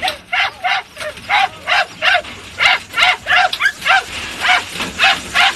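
Rabbit-hunting dogs (podengos and crosses) yelping repeatedly in quick succession, about three short high yelps a second, as they work the scent of rabbits.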